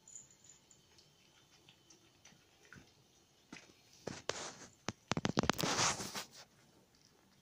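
A cat chewing and licking ham off a tiled floor: quiet wet ticks at first, then a flurry of smacking clicks and short slurps between about three and a half and six and a half seconds in.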